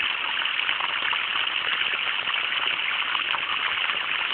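Water from a running garden hose splashing steadily, an unbroken rushing hiss.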